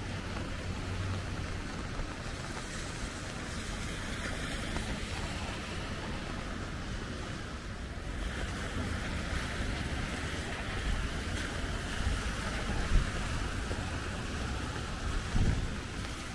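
Rainy city street ambience: a steady hiss of rain and tyres on wet pavement over a low traffic rumble, with a couple of short knocks near the end.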